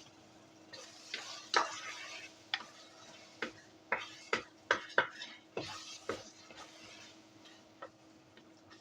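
Spoon stirring rice as it fries in a pot: irregular scrapes and knocks of the spoon against the pot over a light sizzle, dying down after about six seconds.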